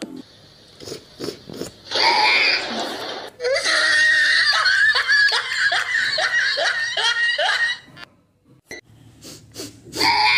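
A few soft clicks, then a loud wheezing laugh that breaks into a run of rapid 'ha-ha' laughter, about two to three bursts a second, lasting about four seconds before stopping.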